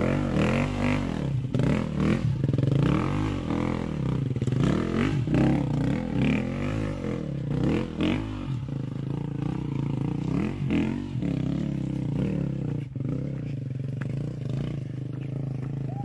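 Dirt bike engine revving up and down over and over as it climbs a steep, rutted dirt trail. The revs settle into a steadier run over the last few seconds.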